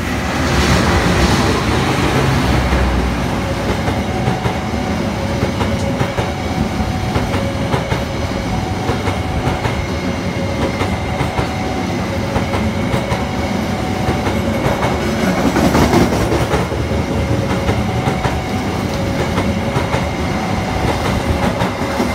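Argo Parahyangan passenger train passing on the adjacent track: its diesel locomotive, then a long string of coaches, wheels clicking steadily over the rail joints in a continuous roar, with heavy rain falling.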